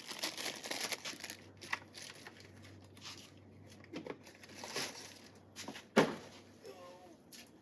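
Hands handling pocket knives and their packaging: light rustling and crinkling with small clicks, and one sharper click about six seconds in.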